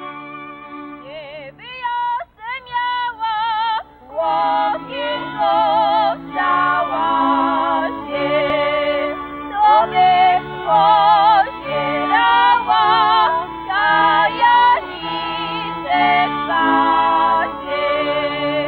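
Górale (Podhale highlander) string band of fiddles and a basy (three-string bowed bass) accompanying two women singing a highlander song in high voices with wide vibrato. The music fills out and grows louder about four seconds in, the bass sawing steady low notes under the sung line.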